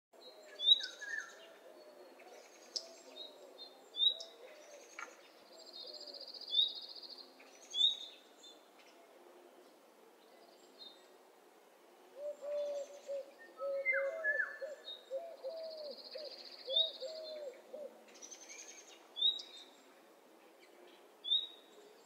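Several birds calling: short, sharp high chirps every second or so, a couple of buzzy trills, and low wavering hooting calls underneath that grow stronger in the second half.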